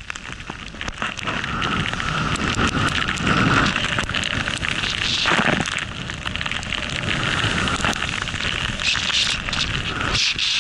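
Snowboard riding through deep powder snow: a steady hiss and crackle of snow spraying against the board, louder from about a second in.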